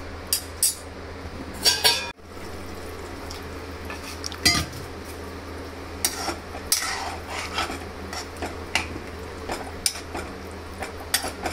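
Metal spoon clinking and scraping in a kadhai as paneer curry is stirred after a little water is added for gravy. The clinks are irregular and sit over a steady low hum.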